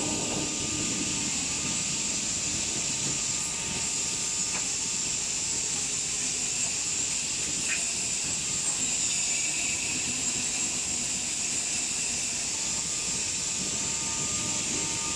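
Factory machinery running on an electric kettle production line: a steady high-pitched hiss over a mechanical hum with faint steady tones, and two brief clicks, about four and a half and about eight seconds in.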